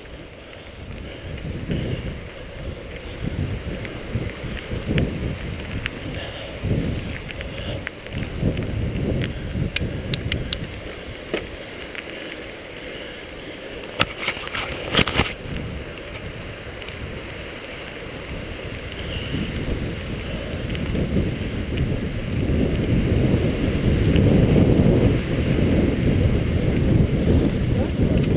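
Mountain bike descending a gravel track at speed: wind rushing over the camera's microphone and tyres rolling over gravel, with knocks and rattles from the bike over bumps, a cluster of them about 14 seconds in. The rumble is loudest near the end.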